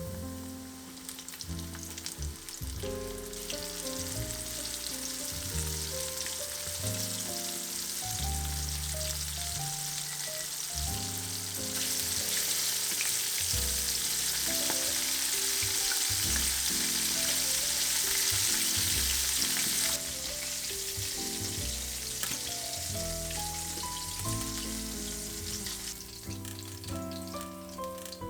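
Oil sizzling steadily as food fries, louder for several seconds in the middle and then dropping suddenly, under background music.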